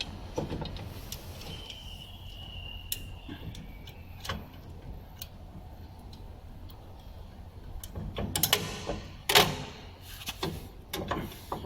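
Scattered clicks and knocks of parts being handled and set in place, the sharpest two about eight and nine seconds in, over a low steady hum.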